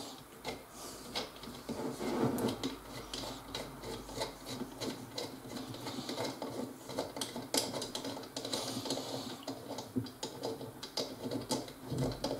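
A steel bolt with a washer being unscrewed by hand from a threaded insert (Rampa-Muffe) set in a wooden board: faint, irregular scraping of the threads and washer, with many small clicks.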